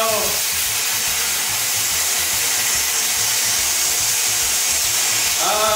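Electric pressure cooker venting steam through its pressure-release valve in a steady hiss: the pressure built up during cooking is being released by hand.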